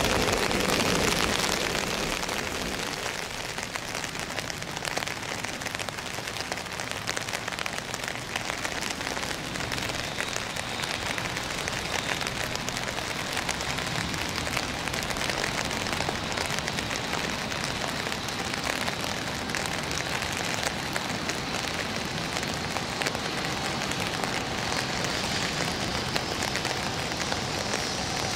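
Steady hiss of rain. A louder train sound dies away in the first two seconds, and a faint steady whine comes in later, from a distant freight train crossing a viaduct.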